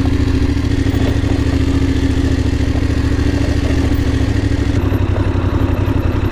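Voge 900 DSX's parallel-twin engine running at steady low revs as the motorcycle rides slowly along a trail.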